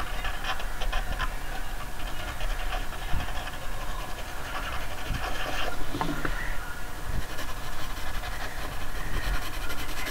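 A drawing tool scratching and sliding across paper in short, repeated strokes.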